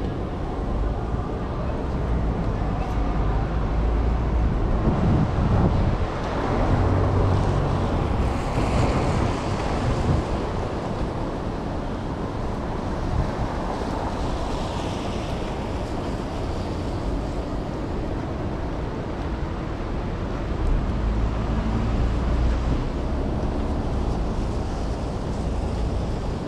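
Wind buffeting the microphone in gusts, a low rumble that swells and fades, over a steady hiss of rain on a wet street.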